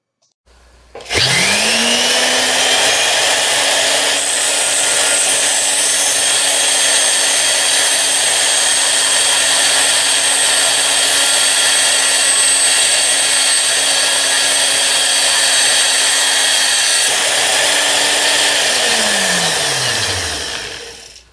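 Flexible shaft grinder spinning up and driving a thin cut-off disc that grinds 1/16 inch off the end of a small 4-40 steel screw. A steady motor hum sits under a loud hissing, whining cut, and the motor winds down with a falling pitch near the end.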